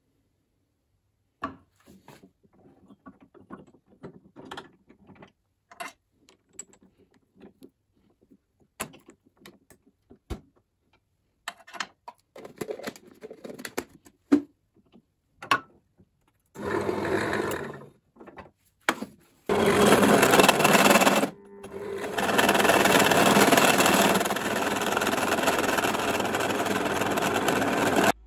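Scattered clicks and knocks of the 100 mm Forstner bit and drill press being handled, then a bench drill press running, in two short runs and then a longer steady one, as the bit bores into a wooden board. The drilling stops suddenly at the end.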